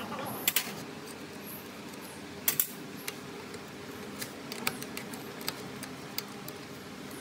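Small metal clicks and clinks, as of hand tools and metal parts being handled: a sharp double click about half a second in and another about two and a half seconds in, then a scatter of lighter ticks.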